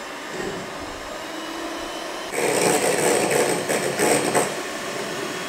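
Electric hand mixer running steadily, its twin beaters whipping cream in a glass bowl. It gets louder for about two seconds in the middle, then settles back.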